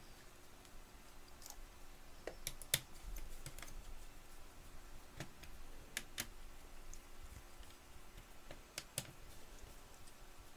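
Sparse light clicks and taps, about a dozen spread irregularly, from a laptop's cooling fan and heatsink assembly being handled and fitted back into the open case, over a faint steady hum.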